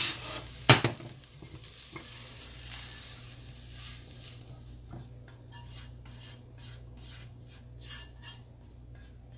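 A spoon scraping hot cooked smoked-herring and vegetable filling out of a pan into a bowl, the food still sizzling faintly. A sharp knock comes just under a second in, then a run of quick scraping strokes through the second half.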